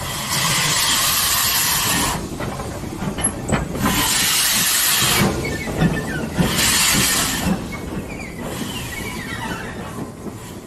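Ivatt Class 2MT 2-6-2 tank locomotive 41298 pulling away slowly under steam. Steam hisses in four long bursts about two seconds apart, in time with its slow beat, and the bursts grow fainter as it draws away.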